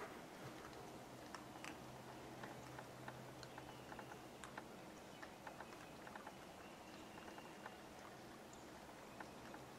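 Near silence: faint scattered small clicks and ticks over a faint steady hum.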